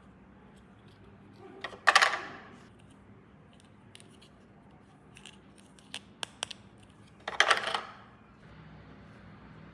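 Hands handling small plastic toy pieces and packaging: two short rasping scrapes about five seconds apart, with a few sharp clicks between them.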